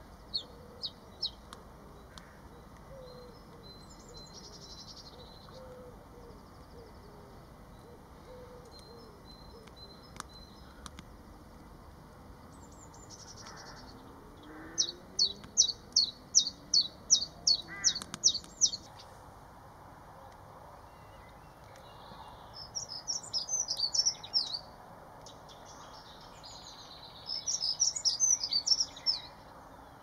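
Common chiffchaff singing its repeated 'chiff-chaff' song of evenly spaced high notes: a few notes at the start and a run of about a dozen, roughly three a second, midway. Near the end come two faster, jumbled twittering phrases.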